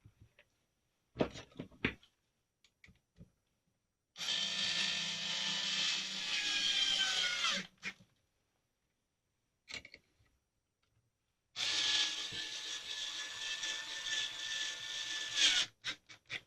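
Mastercraft electric screwdriver driving screws into a rifle's stock in two runs of about four seconds each. Its pitch falls during the first run as the screw tightens. A few light clicks of parts being handled come before.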